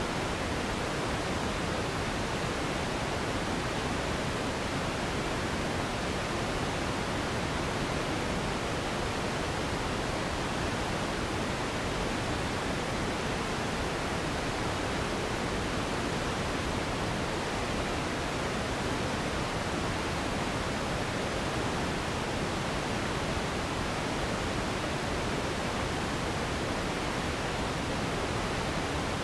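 Steady generated pink noise: an even, unchanging hiss with no tones or breaks, used as a sleep and relaxation sound.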